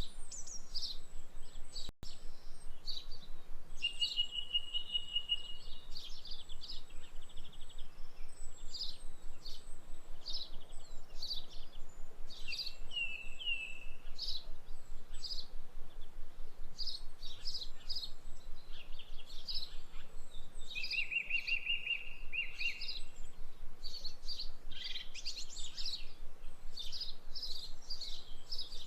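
Birdsong: a steady stream of short high chirps and trills from several small birds, with a few longer whistled notes, over a faint hiss.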